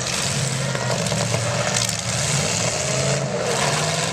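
Engines of the last demolition derby cars running and revving together in the arena.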